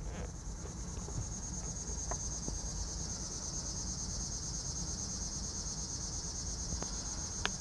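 Insects chirping in a steady high-pitched pulsing trill, with a low steady hum underneath and a single sharp click near the end.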